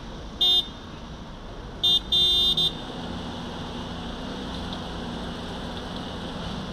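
A vehicle horn honks four times: one short toot, then a quick toot, a longer blast and a last short toot about a second and a half later. Under it runs the steady rumble of roadworks machinery and traffic, with a lower engine drone coming in about three seconds in.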